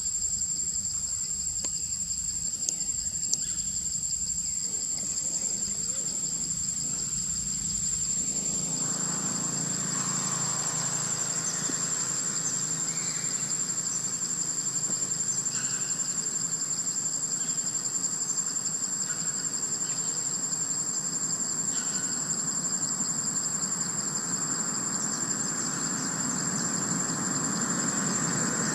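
Steady high-pitched insect chorus shrilling without a break. About eight seconds in, a lower steady rumble joins it and runs on.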